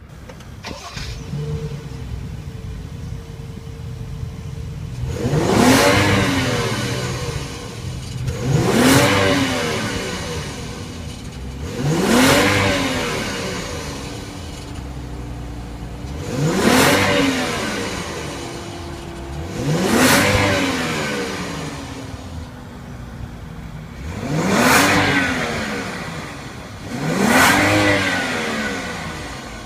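2014 BMW 535i's 3.0-litre turbocharged inline-six idling, then revved seven times in short blips. Each blip rises and falls back to idle within about a second, a few seconds apart, heard at the exhaust tailpipes.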